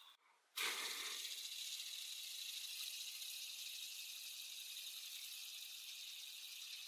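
Homemade fidget spinner turning on a skateboard bearing, set spinning suddenly about half a second in. It then whirs with a steady high hiss that slowly fades.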